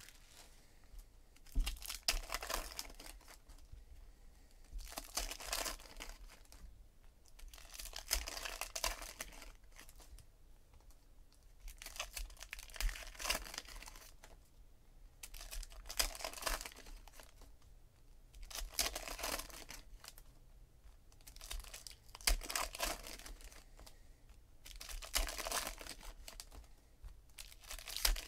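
Shiny foil wrappers of trading-card packs being torn open and crinkled by hand, in bursts every few seconds, with cards shuffled between them.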